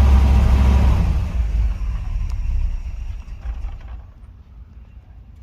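Cold Chevrolet 305 small-block V8 running, then losing power and stalling: from about a second in its rumble fades and dies away over a few seconds. It is a hard-starting engine that won't keep running cold, with the gas pedal not held down long enough on the start.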